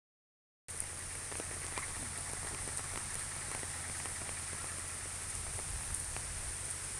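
Steady rain falling, with scattered individual drops ticking sharply through it; it starts abruptly a moment in, after a brief silence.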